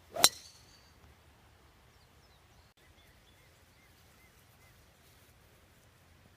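A golf club striking a ball in a full swing: one sharp crack about a quarter-second in, with a short high ring after it. Faint bird chirps follow a couple of seconds later.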